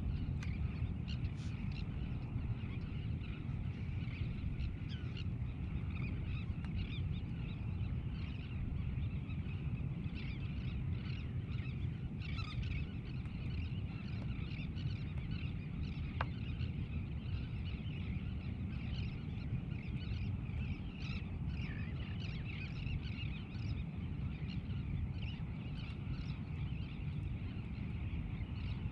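Many birds calling in the distance, a busy scatter of short chirping calls, over a steady low rumble.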